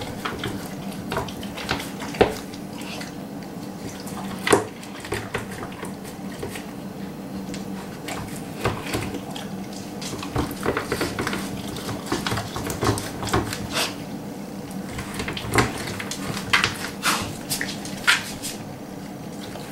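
A Rottweiler eating from a green plastic slow-feeder bowl: wet licking and chewing with irregular sharp clicks and knocks of the plastic bowl, more frequent and louder in the second half, over a steady low hum.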